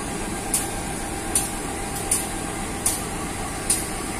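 Indonesian CC203 diesel-electric locomotive idling at a standstill, a steady low rumble. A short high hiss repeats evenly about every three-quarters of a second.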